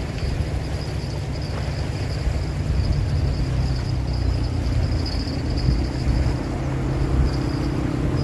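An engine running nearby: a steady low drone that grows a little louder from about three seconds in.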